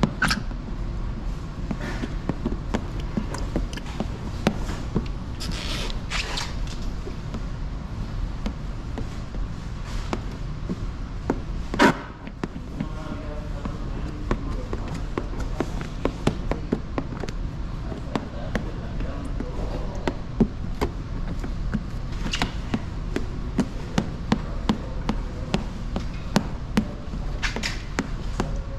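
A plastic squeegee and hands working wet paint protection film on a car bumper: scattered light clicks and taps and a few short hissing swishes, with one sharper click near the middle. A steady low hum runs underneath.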